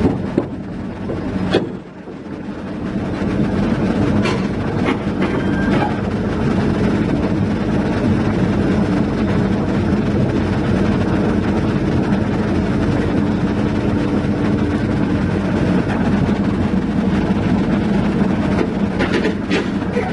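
Heavy diesel engine running steadily, with a brief drop in level about two seconds in. A few sharp metallic knocks come in about one and a half seconds in, several more between four and six seconds in, and some near the end.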